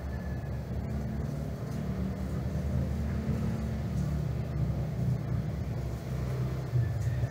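A motor engine running steadily, a low hum with a shifting pitch.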